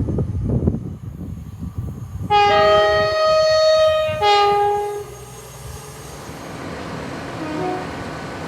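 A train rumbles along for the first second or so. Then a train horn sounds one long blast of several notes together, about two seconds, followed at once by a short second blast.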